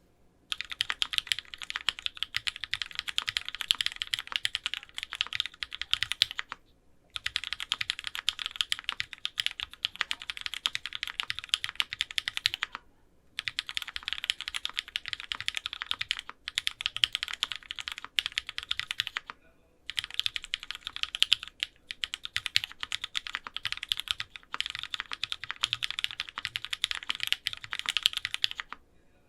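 Fast typing on a Sangeo65 mechanical keyboard with lubed Cream switches, an aluminium plate and ABS Cherry-profile keycaps: dense, rapid keystrokes in runs of about six seconds, broken by short pauses.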